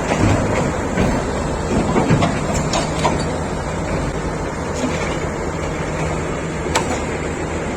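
SANY SY500H 50-ton crawler excavator's diesel engine running steadily, with scattered knocks and clanks, more of them in the first three seconds and one sharp clank near the end.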